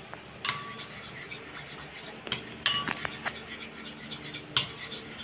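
Metal cutlery clinking and scraping against a bowl while stirring a thick mayonnaise dressing, with a few sharper, briefly ringing clinks among softer scraping.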